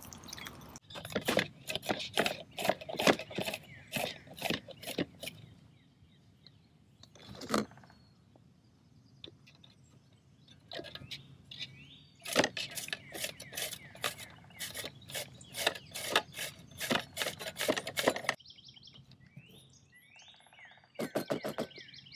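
A zucchini being grated on a metal box grater into a plastic bowl: quick rasping strokes, about two or three a second, in runs of several seconds.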